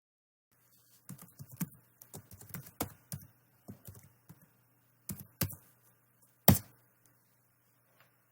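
Typing on a computer keyboard: a run of irregular key clicks, the loudest near the end, over a faint steady low hum.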